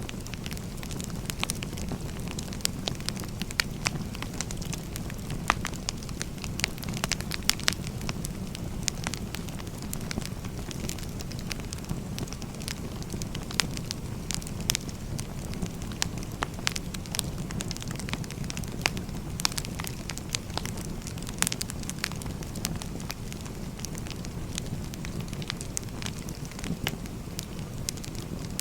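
Firewood burning: a steady low rumble of flames with frequent irregular sharp crackles and pops.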